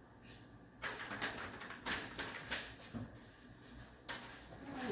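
A handful of short clicks and knocks, about six spread over a few seconds, like objects being handled and set down.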